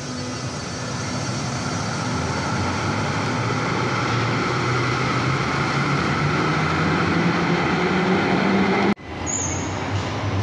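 Stadtbahn light-rail car running through an underground station, its motors and wheels making a steady rumble with a low drone that grows louder and climbs slightly in pitch. The sound cuts off abruptly about nine seconds in, and a similar rail rumble picks up again.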